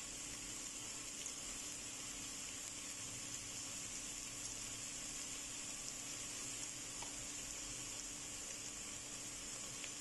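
Chopped onions and garlic sizzling steadily in oil in a pot, a soft even hiss over a faint low hum.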